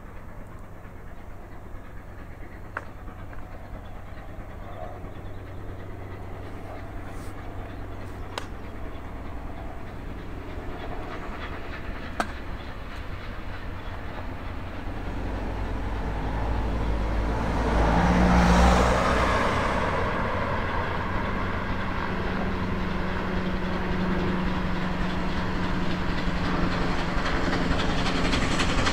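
Bulleid 'West Country' class steam locomotive 34092 City of Wells hauling a passenger train towards the listener. Its exhaust and the running of the train on the rails grow steadily louder, with a surge of noise about two-thirds of the way through.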